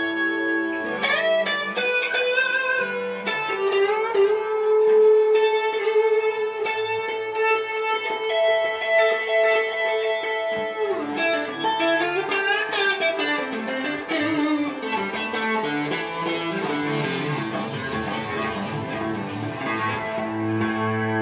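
Fender Telecaster American Standard electric guitar played through atmospheric effects in a slow, pensive improvisation. A long held note rings under quick picked notes, the playing turns into busier, faster runs about halfway through, and a steady sustained drone chord sounds at the start and again at the end.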